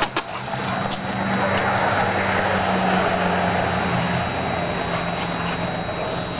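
A motor vehicle's engine running steadily nearby, swelling over the first three seconds and then slowly fading.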